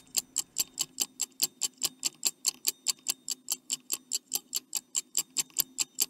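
Stopwatch ticking sound effect, rapid even ticks at about five a second, counting down the time given to answer a quiz question.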